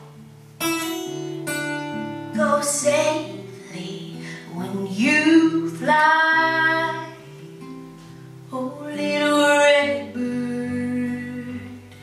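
Solo female voice singing long held notes over a strummed acoustic guitar.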